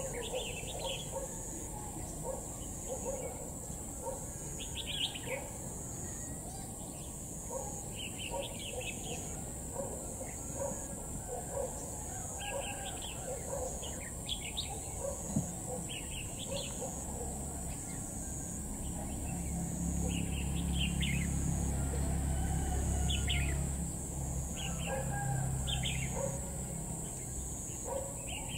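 Red-whiskered bulbuls calling: short chirping phrases repeated every second or so. A low rumble swells underneath through the second half.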